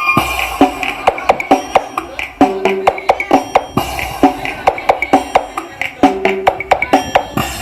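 Music with fast, sharp percussion hits and short pitched notes, played back through a PAudio EM12-LB600/EM12-300LB loudspeaker under test.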